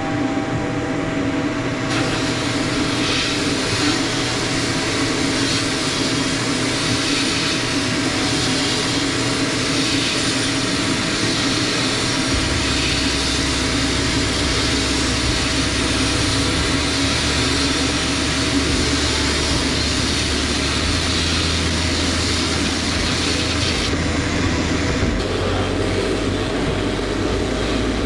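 Sandblasting in a blast cabinet: the blast gun's compressed air and grit hiss steadily against a sheet-metal tin box, over a constant machine hum. The hiss starts about two seconds in and drops off briefly near the end before resuming, and a deeper low drone joins about halfway through.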